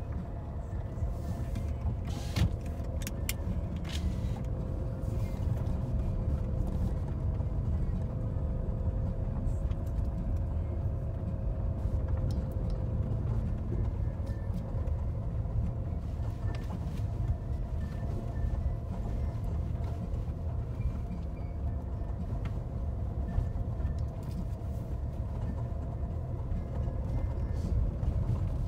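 Jeep Renegade driving slowly along a gravel track, heard from inside the cabin: a steady low engine and tyre rumble. A few sharp clicks and knocks come between two and three and a half seconds in.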